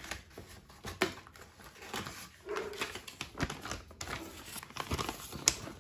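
Cardboard box tray and packaging being handled: scattered light taps, clicks and rustles.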